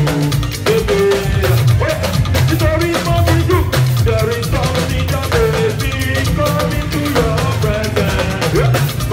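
Live band music: a drum kit keeps up a beat over a steady bass line while a man sings.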